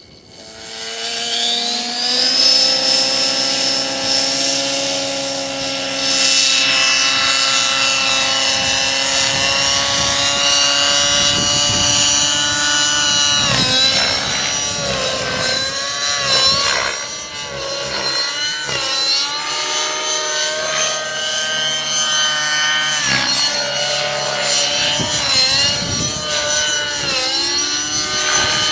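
Align T-Rex 600 RC model helicopter spooling up from rest with a rising whine over about two seconds, then running at a steady pitch. From about 14 seconds in it flies aerobatics at a 2,050 rpm rotor head speed, its whine dipping and rising again and again with the manoeuvres.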